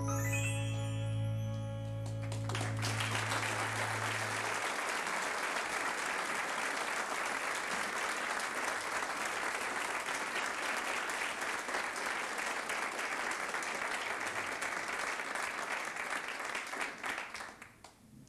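The last held chord of the piano-and-band accompaniment rings out and fades as audience applause builds. The applause then runs as long, steady clapping that dies away near the end.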